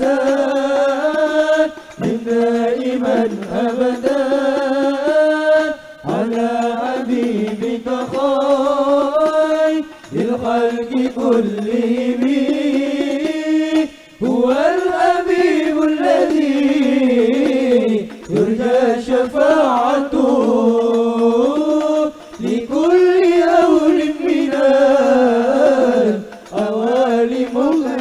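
A single voice chanting a melodic Arabic prayer, long wavering held notes in phrases of about four seconds with a short break for breath between each.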